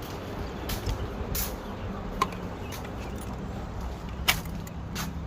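A few separate sharp clicks, the loudest about two seconds in and again near the end, over a low steady rumble.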